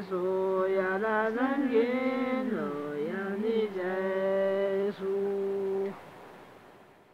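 A voice chanting a Tibetan Buddhist devotional song (gur) in long held notes with slow pitch turns between them. The singing stops about six seconds in and fades away.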